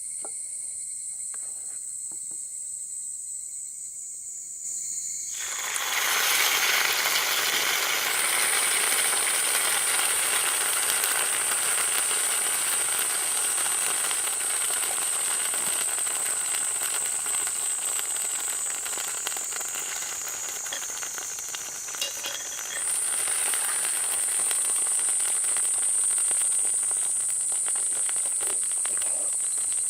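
Food sizzling in a hot cast-iron skillet over a wood fire, the sizzle starting suddenly about five seconds in and running on steadily, with a short dip and a fresh surge about three quarters of the way through. Crickets chirp steadily throughout.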